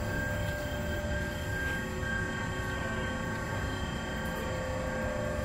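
Steady machine hum with a low drone and a couple of constant whining tones above it.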